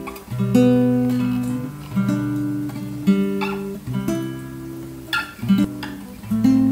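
Background music: an acoustic guitar playing slow plucked and strummed chords, each chord ringing on before the next.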